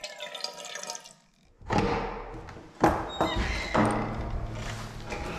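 Water poured from a bottle into a metal cooking pot, splashing and ringing, for about the first second. After a brief gap, louder rumbling handling noise follows, with several sharp knocks, the loudest about three seconds in.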